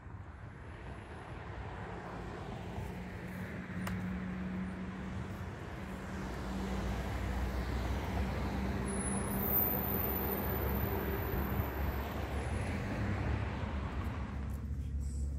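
Road traffic: motor vehicles driving by close at hand, with tyre noise and a steady low engine hum. It gets louder over the first several seconds and stays up.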